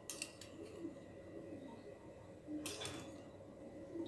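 Cooking oil being poured from a small steel cup into a hot nonstick kadai: a brief, faint pouring sound about two and a half seconds in, over quiet room tone.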